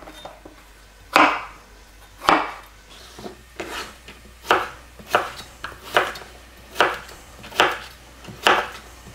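A chef's knife dicing zucchini on a wooden cutting board: about ten evenly spaced chops, a little over one a second, each a short knock of the blade on the board.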